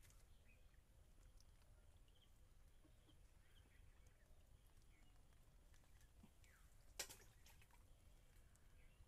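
Near silence: faint outdoor ambience with a few scattered faint bird chirps, and one short sharp click about seven seconds in.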